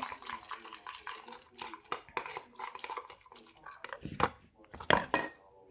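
A mixing utensil scraping and clicking against a bowl while stirring a thick potato-starch slime mixture, with a few louder knocks about four and five seconds in.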